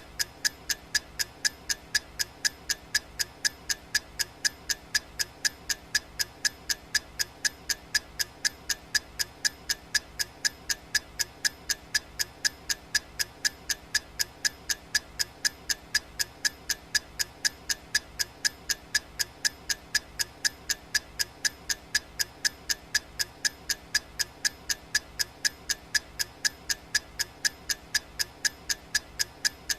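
Clock ticking sound effect of a countdown timer: quick, crisp, evenly spaced ticks that keep a steady beat throughout.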